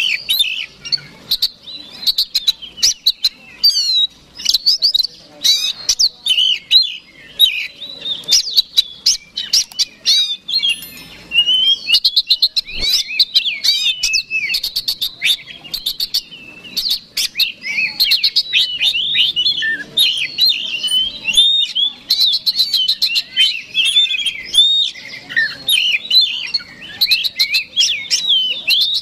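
Male Oriental magpie-robin singing a loud, fast, unbroken song of varied whistles, chirps and buzzy trills, with hardly a pause. It is the insistent fighting song of a bird in full voice, used to provoke rival magpie-robins into singing.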